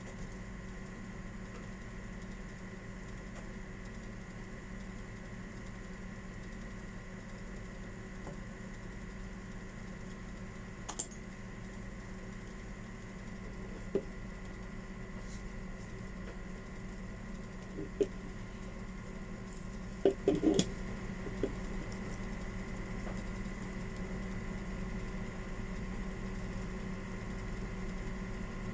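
A few light clicks and knocks of parts or tools being handled over a steady background hum, with a quick cluster of knocks about two-thirds of the way through.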